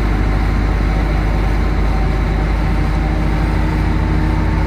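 Runabout speedboat under way at speed: steady engine drone mixed with the rush of wind and water.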